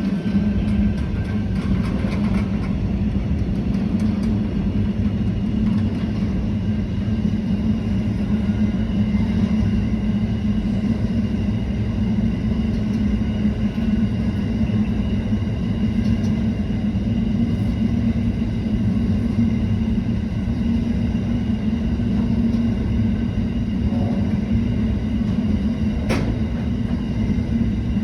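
Grain train rolling past close by: a steady, loud rumble of wheels on rails, with one sharp clack about two seconds before the end.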